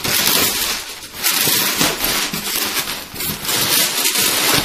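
Plastic packaging and bubble wrap rustling and crinkling as they are handled around a polystyrene box, in uneven bursts with brief lulls.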